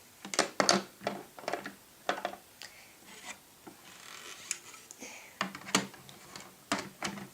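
Plastic toys handled and moved on a hard surface: irregular light knocks and clacks, with some rubbing and scraping between them.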